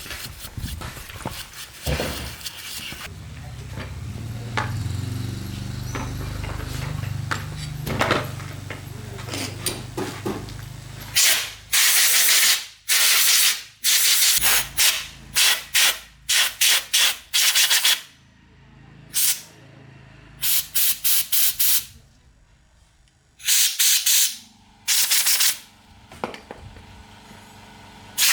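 Abrasive rubbing on a surface, like hand sanding: softer rubbing with a low hum at first, then from about eleven seconds in, loud quick back-and-forth strokes in bursts with short pauses between.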